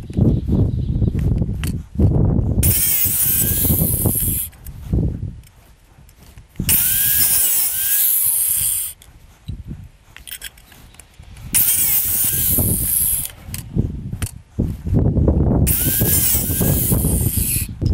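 Angle grinder in a cut-off stand, running and cutting through metal bar stock with its disc. There are four harsh cuts of about two seconds each, with quieter gaps between them.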